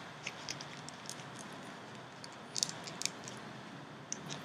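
Faint crinkling and small clicks of tissue paper and a cardboard disc being handled as a metal brad is pushed through them, with a few louder crackles about two and a half to three seconds in.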